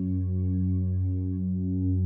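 Synthesizer music: a steady deep bass note under slowly changing held chords.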